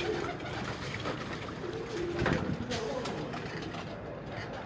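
Domestic pigeons cooing in short low calls, with a brief louder noise about two seconds in.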